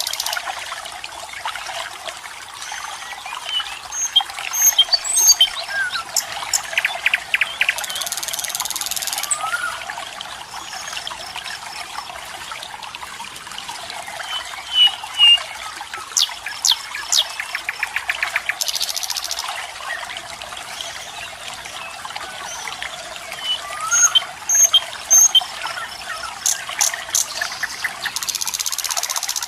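Steady rush of flowing water with birds chirping and whistling over it. A louder buzzing trill comes in about every ten seconds.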